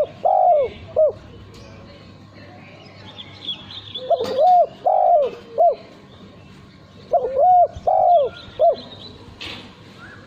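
Male spotted dove cooing: three phrases a few seconds apart, each of two rounded low notes and a short third note. Faint high chirps of small birds sound in the background.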